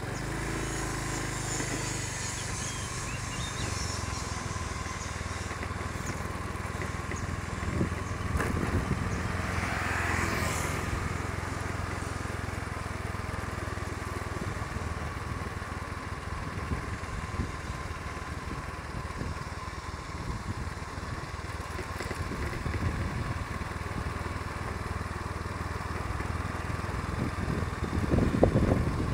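A vehicle on the move, heard from on board: a steady low engine hum with road and wind noise. About ten seconds in, a brief higher sound swells and fades, and the engine sound grows louder near the end.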